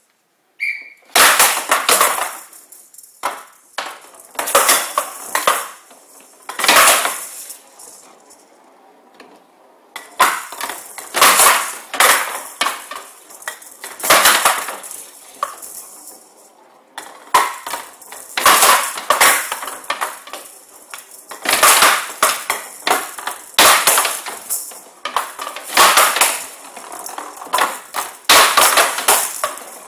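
A showdown rally: the ball, filled with small metal pellets, rattling as it rolls and is struck back and forth with wooden bats, knocking against the table's side walls in a long run of loud clacks and rattles, with a couple of brief lulls.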